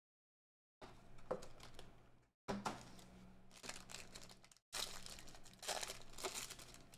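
Foil trading-card pack being crinkled and torn open by hand, in three faint bursts of crackling with sharp crinkle clicks, starting about a second in.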